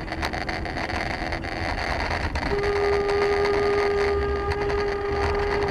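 Steady road and cabin noise of a car driving on a snowy street. About halfway in, a car horn sounds one steady held note for about three seconds.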